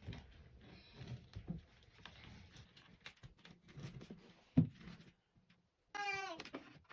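Back of a butter knife tapping and scraping as it pushes fly-screen mesh into the groove of the screen frame, with one louder thump. Near the end, a short high-pitched falling tone.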